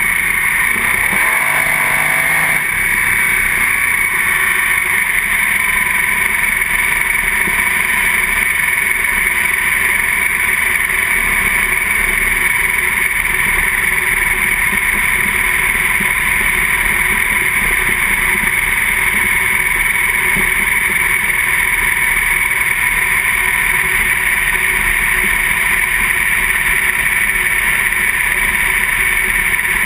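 Two-barrel sprint car's V8 engine running hard at racing speed, heard from an on-board camera as a loud, steady drone. The pitch shifts in the first few seconds, then holds even.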